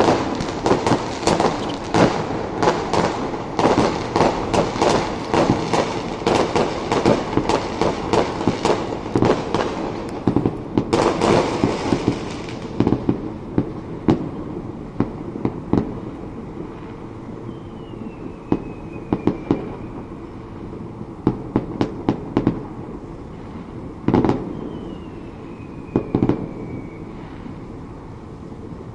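Many distant fireworks going off at once: dense, overlapping bangs and crackling for about the first twelve seconds, then thinning out to scattered bangs and pops.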